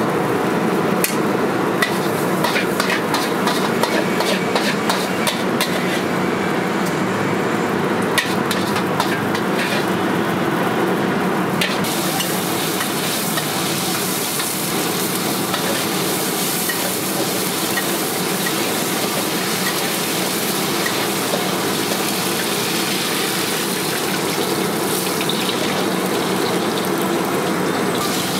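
Metal ladle clinking and scraping in a steel wok over the steady rush of a high-flame gas burner. About twelve seconds in, a hiss of hot oil sizzling sets in and holds, as pork, shrimp and squid fry and are stirred with the ladle.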